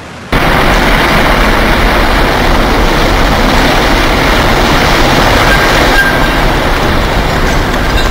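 Loud, unbroken roar of a World Trade Center tower collapsing, cutting in abruptly a moment in and holding steady, heaviest in the deep rumble.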